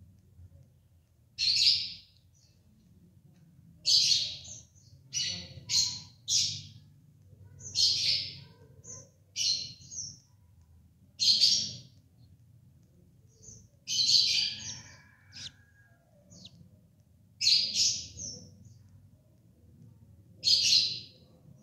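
Budgerigar chirping in a clay nest pot: short, scratchy, high-pitched chirps, single or in quick runs of two or three, every second or two.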